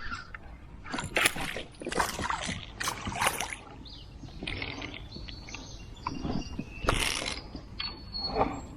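Kayak paddle strokes dipping and splashing in creek water, as a string of irregular splashes.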